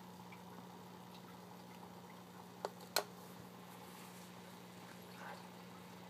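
Faint steady hum and bubbling of an aquarium sponge filter, with two sharp clicks close together about halfway through.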